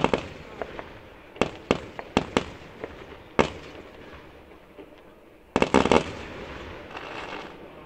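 Aerial fireworks shells bursting: a sharp bang at the start, a handful of separate bangs over the next few seconds, then a rapid cluster of bangs about five and a half seconds in that trails off into crackling.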